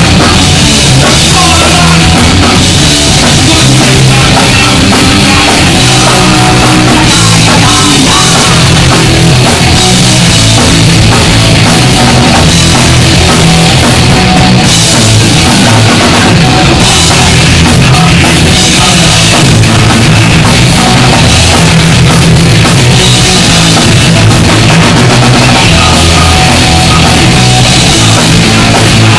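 A punk rock band playing live and loud: distorted electric guitars, bass guitar and a drum kit, with no break.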